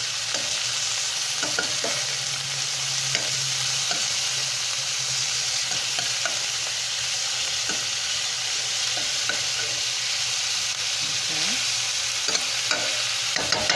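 Ground beef patties sizzling in a stainless steel skillet, with scattered clicks and scrapes of a slotted metal spatula as the browned patties are turned over.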